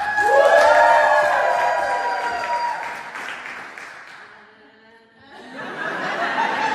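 A small crowd cheering and whooping, with clapping and laughter. The cheering dies down briefly about five seconds in, then swells again near the end.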